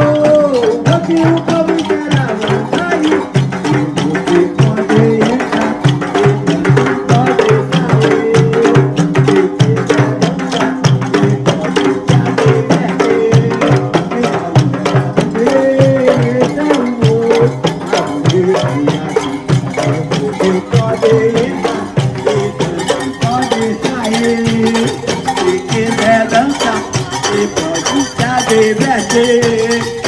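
Bumba-meu-boi percussion playing a fast, dense, steady rhythm: large hand-held frame drums (pandeirões) beaten together with rattling percussion, and a wavering tune carried over the beat.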